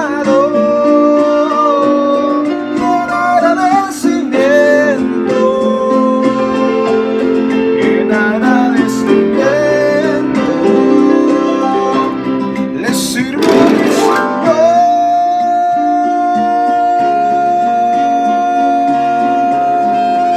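Electronic arranger keyboard playing a bolero: a gliding melody over a steady chord accompaniment, with a brief bright flourish a little past halfway, then one long held melody note.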